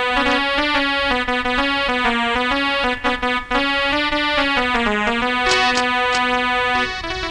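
Electronic keyboard playing a melody interlude in sustained, smoothly stepping notes. A few light percussive taps join about five and a half seconds in.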